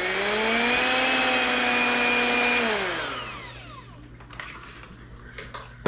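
Electric hand mixer beating a thick cake batter in a stainless steel bowl. Its motor runs steady, rises slightly in pitch about half a second in, then is switched off and spins down about three seconds in. A few light knocks follow, with a sharper knock near the end.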